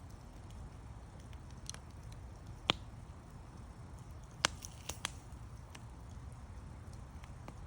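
Wood campfire crackling: scattered sharp pops and snaps, the loudest about two and a half and four and a half seconds in, over a low steady rumble of the burning fire.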